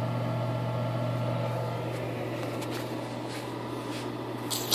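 Ameritron AL-82 linear amplifier running on the bench: its cooling blower gives a steady whir over a low, steady mains hum. A short sharp click comes near the end.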